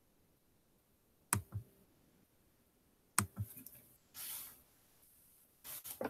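Two sharp clicks, each followed by a softer knock, about a second and three seconds in, then short rustling hisses near the end, picked up faintly over an online call.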